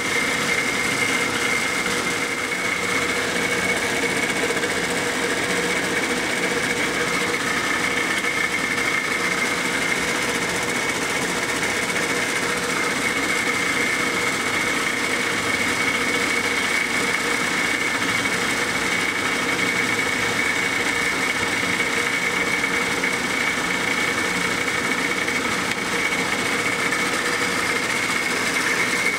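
A shop machine's electric motor running steadily with a constant whine, holding one speed throughout.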